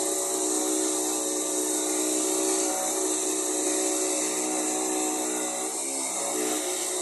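Handheld electric jigsaw running steadily as it cuts through a panel, a steady motor whine; its pitch dips briefly about six seconds in and then recovers.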